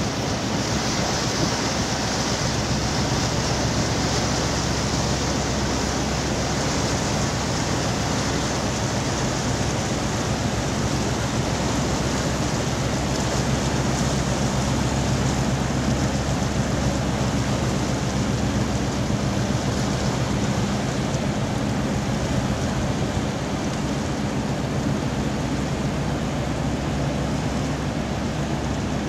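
A large container ship passing close by: the steady low hum of its engine under the rushing of water from its bow wave breaking along the hull.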